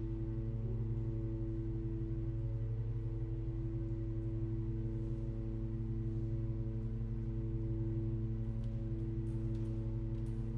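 Pipe organ holding a steady, unchanging chord of several low sustained tones.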